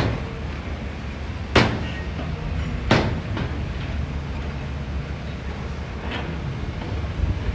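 Heavy earthmoving machinery running with a steady low engine rumble, broken by sharp knocks: one right at the start, one about a second and a half in, one about three seconds in, and a fainter one about six seconds in.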